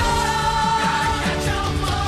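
Background pop song with a singer holding a long note over a full band.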